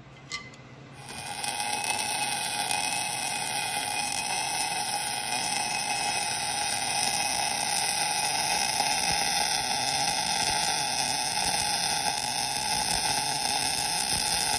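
Arc welding: a steady welding arc starts about a second in as a bead is laid around the inside of a bearing race in the Dana 60 rear wheel hub, the heat meant to shrink the race so it comes out; it cuts off abruptly at the end.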